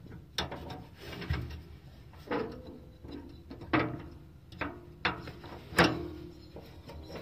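Irregular knocks and clatter, with rubbing between, from hands working a rubber drive belt off a lawnmower transaxle's pulley and knocking it against the metal frame. There are about seven or eight separate knocks, the loudest a little before the end.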